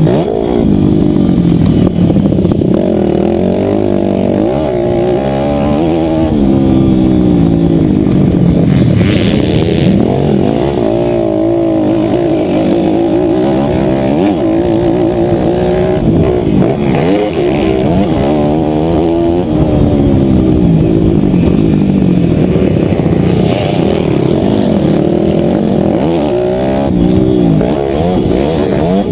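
Motocross bike engine under race load, revving up and falling back over and over as the rider accelerates, shifts and brakes around the track.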